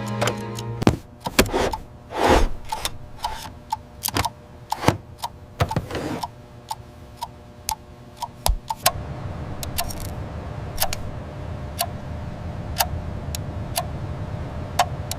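Irregular rustling and clicking, like a parcel being opened, then from about nine seconds in a clock ticking about once a second.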